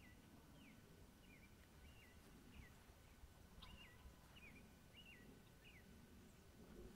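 Faint, repeated short high chirps, some falling in pitch, about one every half second to second, over a quiet outdoor background.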